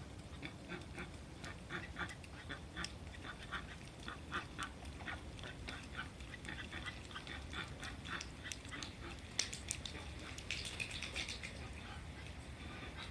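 Ducks quacking in short, repeated calls, several a second, getting busier about ten seconds in.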